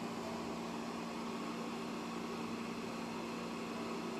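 A 12-volt CPU fan running at full speed as a smoke extractor: a steady whir of moving air with a low steady hum.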